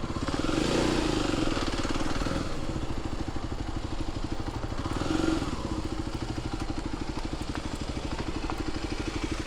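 Motorcycle engine running at low speed, rolling into a parking spot, with a steady rapid pulsing from the exhaust. It swells briefly twice, about a second in and about five seconds in, then settles to an even idle.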